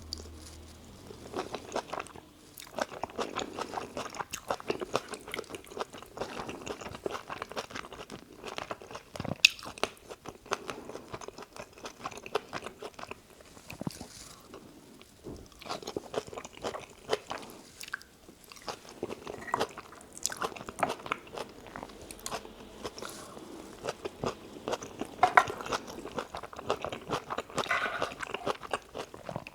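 A person chewing and biting spicy dakgalbi with rice close to the microphone: a steady run of quick, wet mouth clicks with a few short pauses between mouthfuls.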